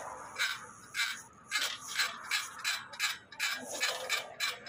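Electric bicycle hub-motor wheel spinning with a rhythmic scraping rub, about two to three strokes a second. It is the loud noise of a wheel that also wobbles, a fault the shop has not yet traced.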